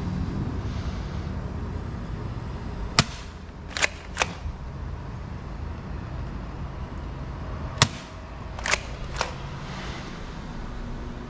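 Bug-A-Salt 3.0 salt gun firing twice, each time a sharp crack followed within about a second by two quieter clicks.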